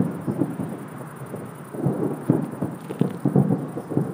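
Aerial firework shells bursting in a finale barrage: a rapid, irregular run of overlapping low booms, densest about two to three and a half seconds in.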